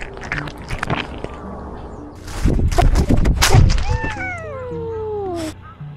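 Domestic cat giving one long, drawn-out meow that falls steadily in pitch over about a second and a half. It comes after loud thumping and rustling, and before that light crunching clicks of dry food being eaten.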